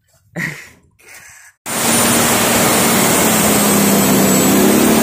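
Turbocharged diesel truck engine running hard and steady, with a thin high turbo whistle over it while the boost gauge shows pressure. It cuts in suddenly about a second and a half in, after a short clatter near the start.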